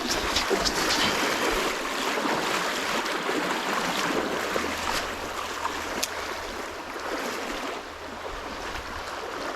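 Creek water flowing steadily, a continuous rushing hiss, with a light click about six seconds in.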